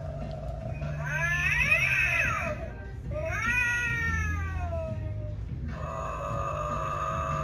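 Animated Halloween cat decoration playing recorded cat yowls: two drawn-out cries, the second a long meow that rises and then falls in pitch.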